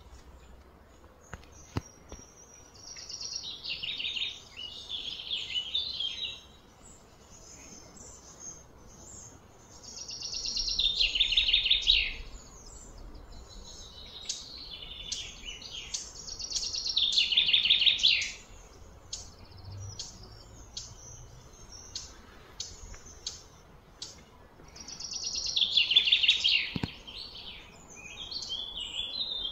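A bird singing: four loud phrases of rapid pulses, each about two seconds long and falling slightly in pitch, repeated every six or seven seconds, with short high chirps between them.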